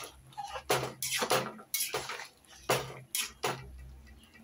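A flat metal spatula scrapes and clinks against the side and bottom of a metal kadai, stirring a thick simmering curry, in a quick, uneven series of strokes that dies away after about three and a half seconds.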